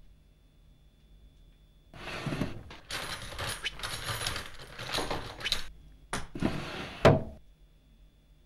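Clattering and rustling of small objects being rummaged through for a few seconds, then a short click and a final sharp knock about seven seconds in.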